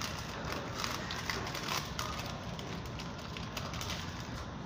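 A paper food wrapper crinkling and rustling as food is picked out of it, densest in the first two seconds, over a steady low background hum.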